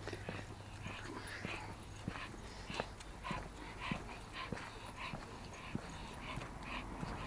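Dog panting in quick, regular breaths, about two or three a second, with light clicks and taps alongside.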